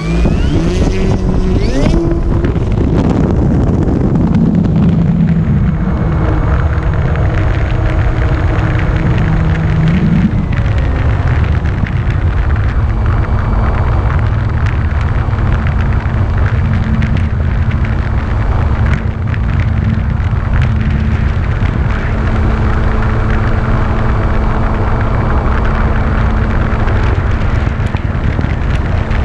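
Electric motor and propeller of a Carbon-Z Cessna 150 RC model plane running, under loud wind rush on the microphone. The motor's tone steps up in pitch about ten seconds in and then holds steady.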